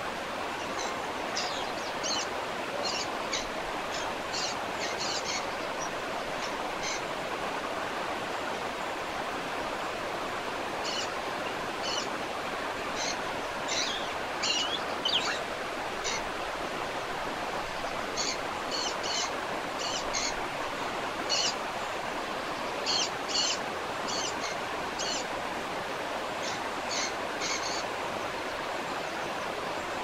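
A waterfall rushes steadily, with clusters of short, high bird chirps over it. The chirps break off between about 8 and 10 seconds in.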